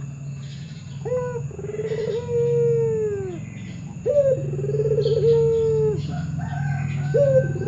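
Puter dove (Barbary/ringneck dove) cooing three times, about three seconds apart. Each call is a short rising note followed by a long wavering coo that drops away at the end, over a steady low hum.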